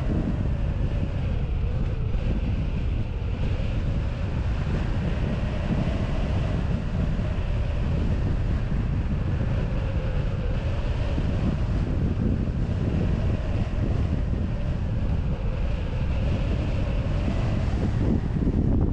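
Steady rush of airflow buffeting the microphone on a hang glider in flight, heavy and rumbling low down, with a faint wavering tone running through it.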